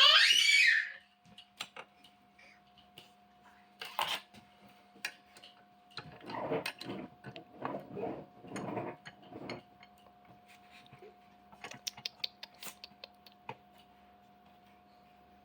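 Small metal parts and tools clicking and rattling as a CNC router's spindle mount is adjusted by hand, with a cluster of rattles in the middle, over a faint steady hum. A loud rising squeal about a second long opens it.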